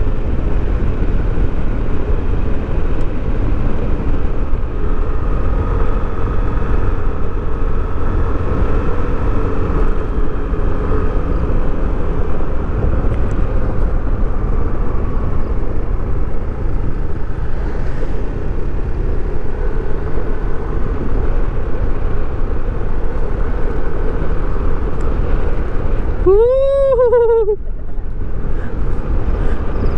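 Wind rushing over the microphone of a Yamaha NMAX 155 scooter being ridden along a road, its single-cylinder engine and drive running steadily under the wind. Near the end a short pitched sound rises and falls in pitch for about a second.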